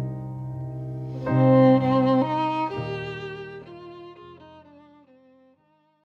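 Background music: sustained string chords that swell about a second in, then step down through several chord changes and fade out.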